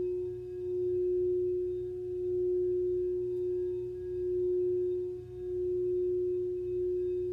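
A sustained sound-healing tone: one steady pitch with faint overtones above it, swelling and fading in a slow pulse about every second and a quarter.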